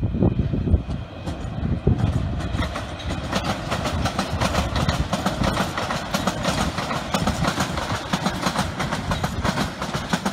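London Underground S Stock train passing, a low rumble at first, then from about two seconds in a rapid, dense clickety-clack of its wheels over rail joints and points, fading out at the end as it goes by.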